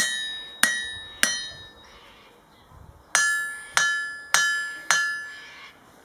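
Hammer tapping a Peter Wright solid wrought-iron anvil: three strikes, a pause, then four more, each giving a clear high ring that dies away. This is the anvil's rebound sound.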